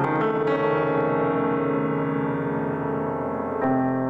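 Grand piano playing slow, sustained chords. New chords are struck near the start and again about three and a half seconds in, and the notes ring on between them.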